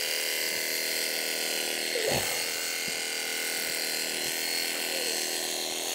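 Cordless electric sheep-shearing handpiece running steadily with an even motor whine as it cuts through the wool of a Texel ram. A brief sound sliding down in pitch about two seconds in.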